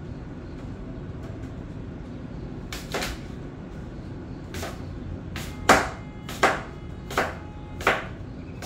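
Kitchen knife chopping an apple on a cutting board: about nine sharp knocks of the blade on the board, starting nearly three seconds in and coming every half second to a second.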